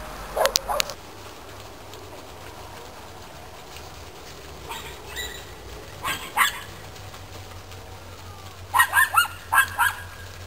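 A dog barking in short bursts: one or two barks about half a second in, a couple more around the middle, and a quick run of four barks near the end.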